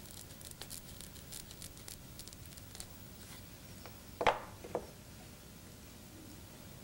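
Small fly-tying scissors snipping through the fibres of a peacock wing quill: a run of faint, crisp snips over the first three seconds. A little after four seconds come two louder short knocks about half a second apart.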